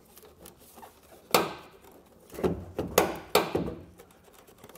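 Plastic taillight housing of a 2017 Chevrolet Silverado 1500 knocking and clicking as it is pulled straight back and worked loose from its tight mounting clips: one sharp knock about a second and a half in, then a few more around the three-second mark.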